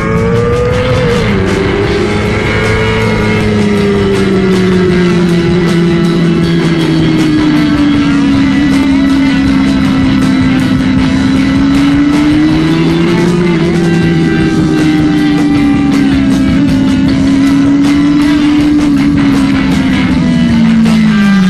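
Honda CBR600RR's inline-four engine running at high revs, its pitch climbing in the first second, sagging slowly, rising again about two-thirds of the way through and dropping near the end. Guitar-led background music plays over it.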